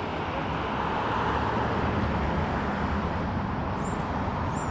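Steady rushing outdoor background noise, swelling slightly about a second in, with three short, high bird chirps near the end.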